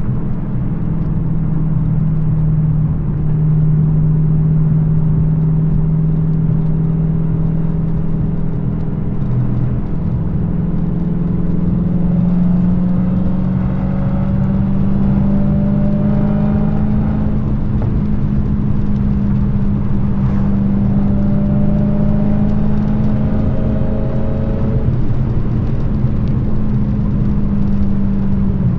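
Supercharged 6.2-litre HEMI V8 of a Dodge Challenger SRT Hellcat with its active exhaust valves deleted, cruising at steady throttle with a deep, even exhaust drone. Its pitch climbs slowly about a third of the way in and then holds, and a fainter whine rises twice over the second half.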